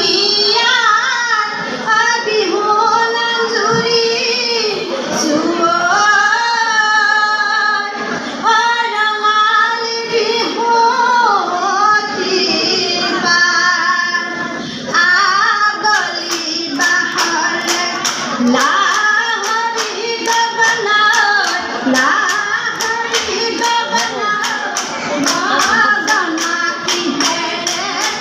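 Women's group singing a Jeng Bihu song together in a rising and falling melody. About halfway through, a sharp, even clapping beat of roughly two to three claps a second joins the singing.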